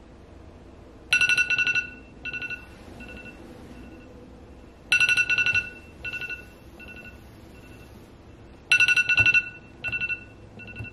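iPhone alarm ringing: a bright chime sounds three times, about four seconds apart, and each chime is followed by a few softer repeats that fade away.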